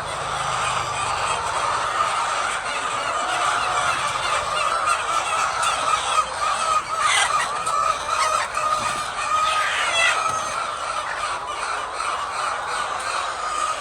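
A large flock of laying hens calling together: a steady din of many overlapping short calls.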